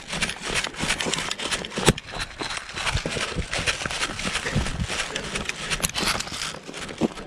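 Running footsteps, a quick irregular series of thuds.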